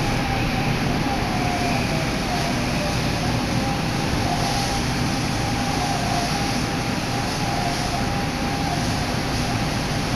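Nagoya Municipal Subway Meijo Line train heard from inside the car as it runs into a station: a steady rumble and hiss with a faint, wavering whine.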